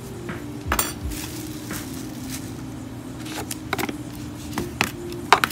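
A cardboard shipping box and its contents being handled and opened: scattered sharp clicks and taps, the loudest near the end.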